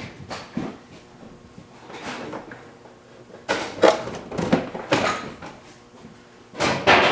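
Irregular knocks, scrapes and rattles of the old hood release cable being pulled out of a Ford F-350, with a cluster of handling noises around the middle and another near the end.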